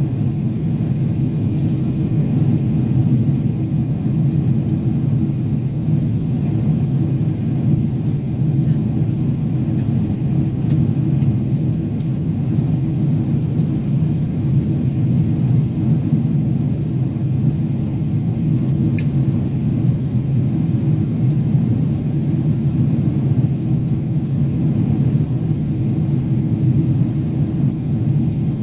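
Steady low drone inside a jet airliner's cabin in flight: engine and airflow noise heard at a window seat.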